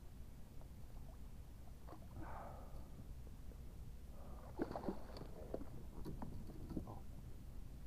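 Water splashing and sloshing as a hooked chinook salmon thrashes at the surface beside a kayak and a landing net, with a cluster of sharp knocks and splashes from about halfway through, over a low steady rumble.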